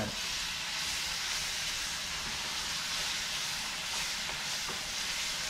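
Onions and a flour roux sizzling in a hot stainless skillet as cream of mushroom soup is stirred in: a steady, even hiss.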